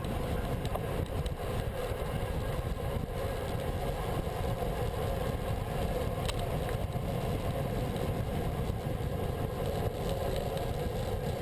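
Steady wind and road noise on a handlebar-mounted action camera's microphone as a bicycle rolls along asphalt: an even, unbroken rumble.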